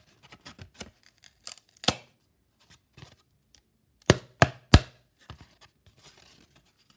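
Clicks and sharp knocks from prying apart and handling a small plastic speaker, with three loud knocks in quick succession about four seconds in.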